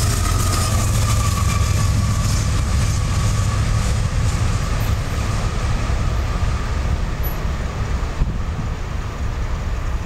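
Diesel locomotive at the tail of a freight train passing close by: a heavy, steady low rumble with rail and wheel noise that eases slightly in the second half as it draws away.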